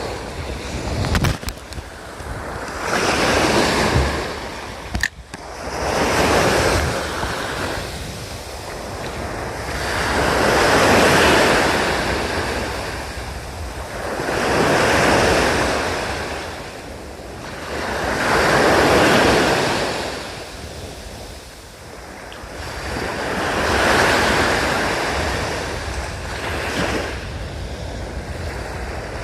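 Waves breaking on a sandy surf beach, the wash swelling and fading every four to five seconds, with wind on the microphone. A sharp click about five seconds in.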